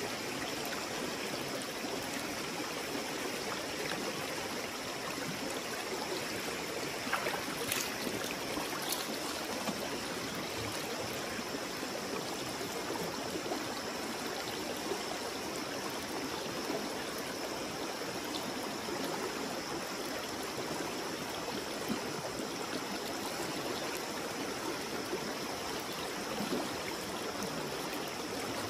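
River water flowing steadily, with a few faint ticks about seven to nine seconds in.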